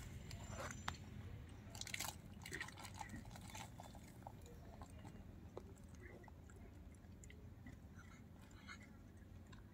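Faint, scattered crunching and crackling of gray langurs eating biscuits or snacks, with short clicks now and then, the densest around two seconds in.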